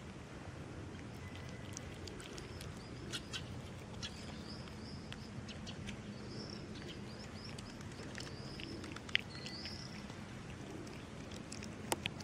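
A cat eating wet food from a plastic tub: scattered small clicks of chewing and lapping. Birds chirp in short high calls in the background throughout.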